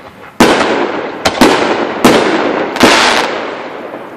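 Consumer aerial fireworks going off: five sharp, loud bangs in quick succession, each trailing away over a second or so, the last tail fading out near the end.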